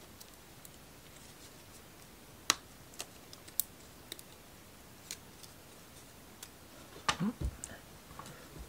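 Sparse sharp clicks and light taps of thin laser-cut plywood model-kit parts being handled, the loudest about two and a half seconds in, then a quick cluster of knocks near the end.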